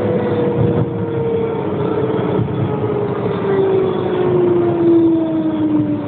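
Pesa 120Na tram's traction drive whining in one steady, slowly falling pitch as the tram slows, over the rumble of the running car.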